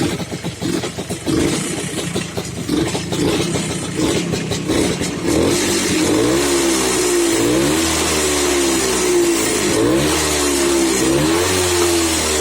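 An engine running unevenly, then revved up and down repeatedly from about five seconds in.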